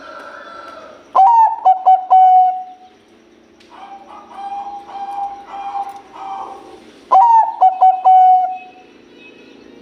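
Zebra dove (Bangkok-bred perkutut) cooing. It gives two loud song phrases about six seconds apart, each a quick opening note, a few short coos and a long held coo, with softer cooing in the gap between them.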